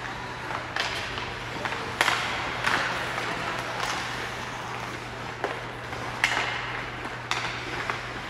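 Ice hockey play echoing in an arena: irregular sharp clacks and knocks of sticks and puck, over a steady low hum.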